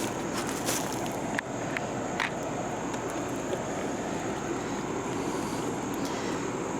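Small gasoline lawnmower engine running steadily, with a few light clicks over it in the first couple of seconds.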